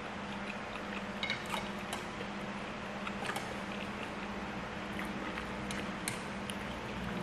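Eating sounds: chewing, with scattered small clicks of chopsticks against a stainless steel pot of noodle soup, over a steady low hum.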